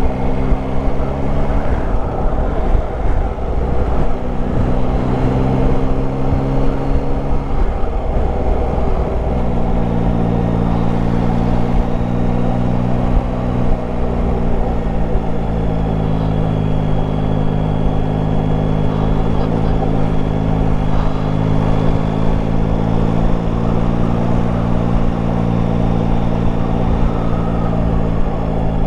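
Yamaha Tracer 9 GT's three-cylinder engine running while the motorcycle is ridden along. The engine note shifts pitch a few times in the first ten seconds, then holds steady at cruising speed.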